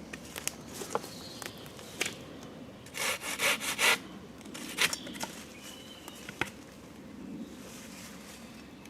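Silky Gomtaro 210 mm pull-cut handsaw sawing a branch held between two other branches: a quick run of short rasping strokes about three seconds in, with scattered clicks and knocks of wood around it.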